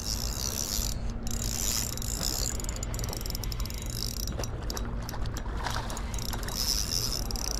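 Shimano Exsence 3000 spinning reel being cranked steadily, its gears whirring and ticking, while a hooked fish is reeled in under load.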